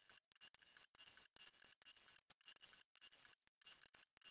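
Near silence: a faint, choppy background hiss.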